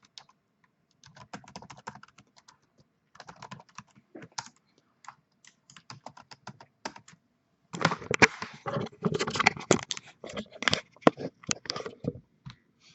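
Typing on a computer keyboard: scattered keystrokes at first, then a faster, louder run of typing in the second half.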